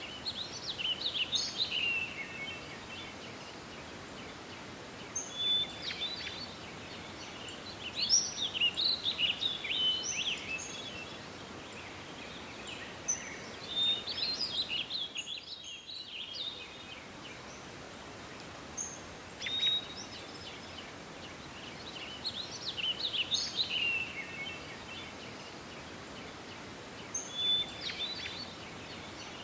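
Songbirds singing in short bursts of chirps and trills every few seconds over a steady outdoor hiss.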